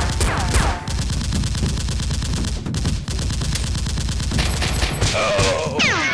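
Rapid gunfire sound effects: a continuous fusillade of shots, with falling whizzes near the start and again near the end.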